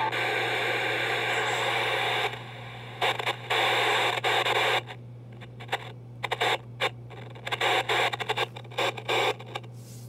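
Sony ICF-P36 portable radio's speaker blaring loud static, which drops out after about two seconds and then cuts back in and out in short, irregular spurts: the sign of a faulty volume knob.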